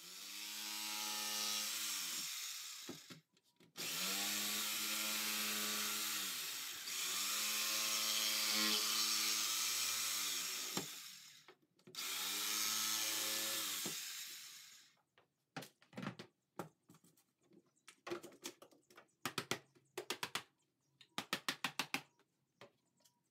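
Electric drill boring holes through the plastic lid of an ice chest, running in four bursts of a few seconds each that spin up and wind down, followed by a string of short clicks and knocks.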